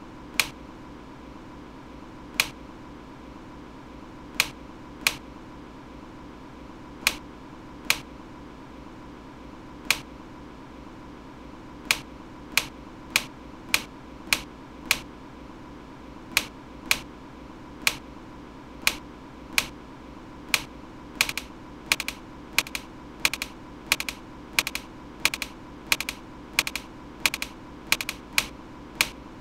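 Sharp single clicks, a couple of seconds apart at first, then coming faster to about two a second, many of them doubled near the end, over a steady hiss with a faint steady tone.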